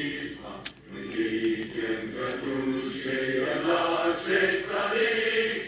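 A woman humming in a string of held, wavering notes: an appreciative "mmm" while tasting the food.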